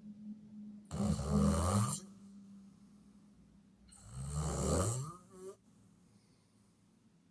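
A person snoring: two loud snores, each about a second long, the second starting about three seconds after the first.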